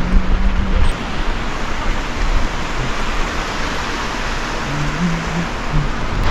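Wind blowing across the microphone: a steady rushing noise with a heavy low rumble.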